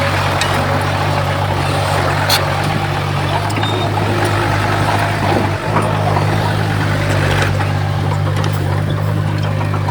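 Heavy diesel earthmoving machinery running steadily under a constant low engine drone, with a few sharp metallic clicks and clanks.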